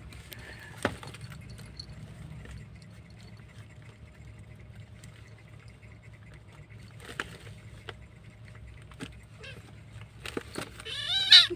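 Two kittens play-fighting, with faint scuffling and the jingle of a small collar bell. Near the end a kitten mews several times in quick succession, each cry rising and falling, and these are the loudest sounds.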